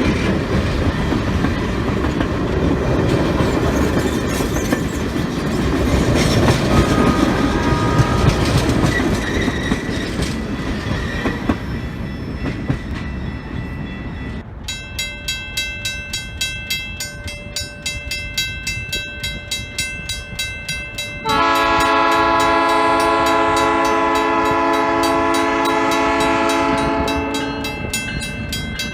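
Train rolling by with wheels rumbling on the rails for the first half. Then a regular ringing, about two strokes a second, and about 21 seconds in a diesel locomotive horn sounds one long chord-like blast of about six seconds.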